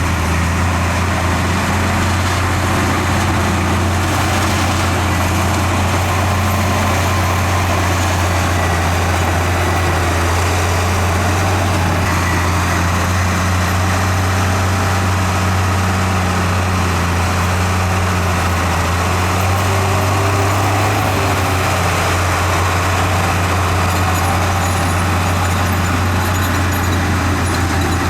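Heavy earthmoving machine's diesel engine running steadily with a deep, even hum.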